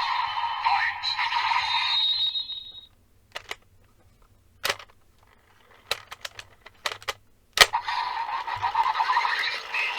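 DX Desire Driver belt toy playing its electronic sound effects and music, which cut off about two and a half seconds in. A series of sharp plastic clicks follows as Raise Buckles are handled and locked into the driver, and the toy's electronic sounds start up again about eight seconds in.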